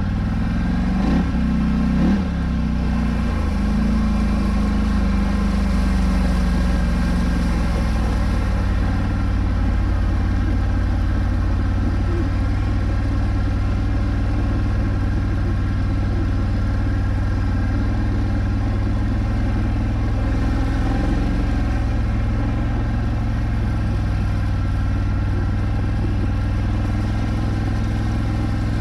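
Polaris Scrambler 1000 ATV engine revving up and down twice at the start, then running steadily under load as the quad drives through deep water.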